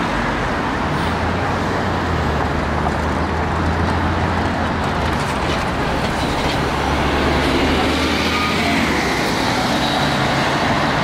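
Steady road traffic: cars passing with a constant wash of tyre and engine noise. An articulated city bus goes by close at hand, adding a low engine hum from about a second in that fades after about eight seconds.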